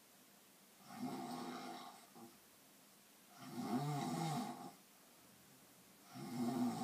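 Snoring: three snores, each about a second long, roughly two and a half seconds apart.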